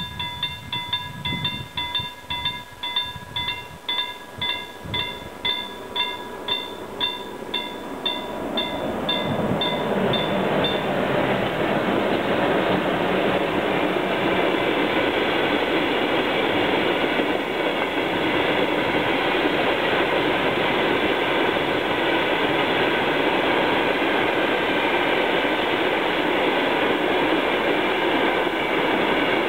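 Level-crossing warning bell ringing about twice a second. About ten seconds in, it is drowned out by the steady rumble and rattle of a passing iron ore freight train hauled by two VR Sr2 electric locomotives, its wagon wheels running over the crossing.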